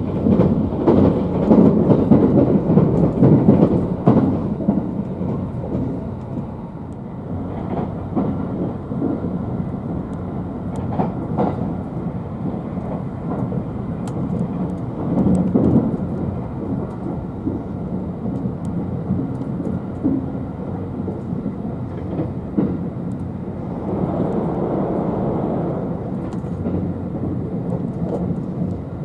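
Running noise of a JR West 271 series Haruka limited express heard from inside the passenger cabin: a steady low rumble of the train on the rails. It is loudest for the first few seconds as an oncoming Thunderbird express passes close alongside, then settles to an even rumble.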